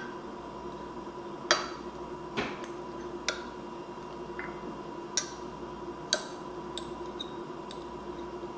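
A utensil clinking against a glass jar about six times, irregularly, while pickled zucchini is fished out of it. A faint steady hum runs underneath.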